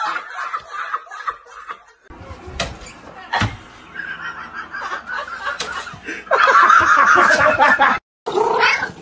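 A man laughing, then a single sharp knock, and near the end a loud, wavering vocalising that is the loudest sound.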